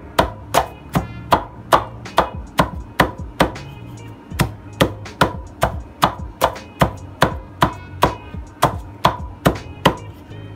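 Wooden pestle pounding papaya leaves in a wooden mortar: steady, evenly spaced knocks about two and a half times a second, with a short pause about four seconds in. The leaves are being crushed to press out their juice.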